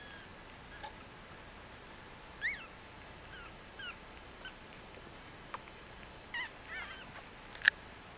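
Newborn Yorkshire Terrier puppies, 18 days old, giving short high squeaks and whimpers every second or so, with a sharp click near the end.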